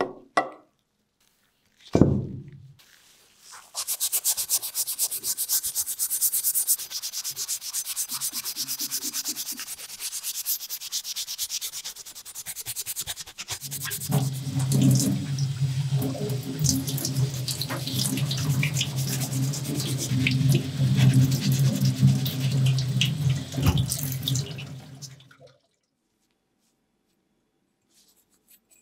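Old steel hatchet head being scrubbed by hand: a steady rasping rub that goes on for about twenty seconds. Partway through, a low steady hum joins it. It opens with a short splash and drip as the head comes out of a liquid bath, and a thump a couple of seconds in.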